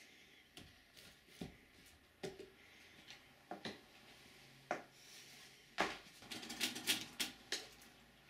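Quiet handling sounds and footsteps on a wooden floor: a book set down, a chair, and scattered single knocks and clicks. About six seconds in comes a quick run of clicks and knocks from the door's handle and latch as the glass-paned door is opened.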